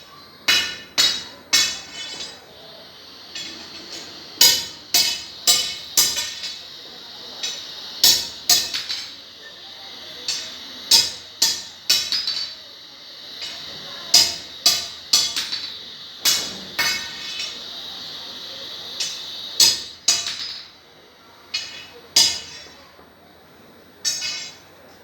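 Hammer blows on steel, ringing metal strikes at uneven intervals, about one or two a second, over a steady hiss for much of the time.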